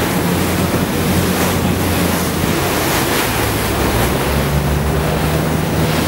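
Wind on the microphone and waves of open sea, over the steady low drone of a whale-watching boat's engine whose pitch shifts slightly about four seconds in.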